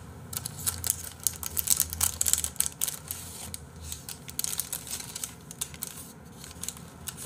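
Paper burger wrapper crinkling and rustling as it is handled and pulled back from the burger, in quick irregular crackles, busiest in the first four seconds.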